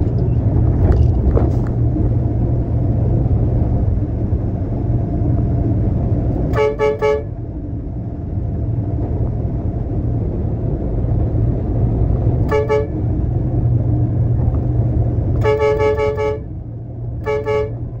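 A vehicle horn honks four times, the third toot the longest, over a steady low truck engine rumble.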